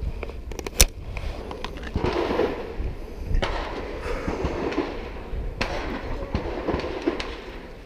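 Pistol shots from elsewhere on the range: sharp cracks at irregular intervals, the loudest about a second in.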